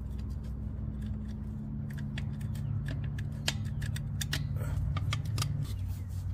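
A utility knife sawing through a damaged rubber tire valve stem held in pliers: a run of small sharp clicks and scrapes of blade on rubber and the steel rim. A steady low hum runs underneath and partly drops away near the end.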